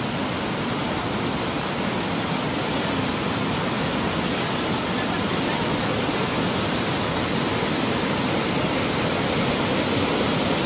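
Tsunami seawater rushing and surging ashore: a dense, steady roar of water that slowly grows louder.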